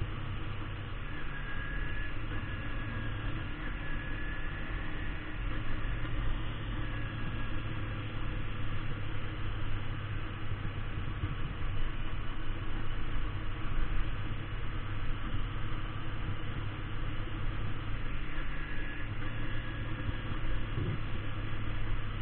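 Kawasaki Ninja 250 motorcycle engine running steadily under way, with a constant rush of wind noise over the microphone.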